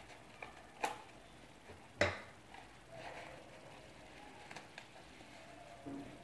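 Scissors snipping a paper packet open, two sharp snips about a second apart, followed by faint rustling of paper as the wrapping is opened out.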